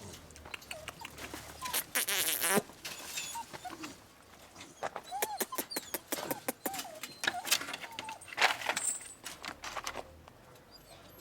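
A dog moving about amid jingling and clicking, with a few short high whines about halfway through.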